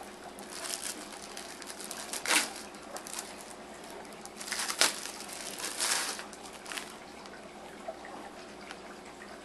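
Crinkling and rustling from handling a small notebook as it is unwrapped and opened, in irregular bursts, the sharpest about two seconds in and just before five seconds.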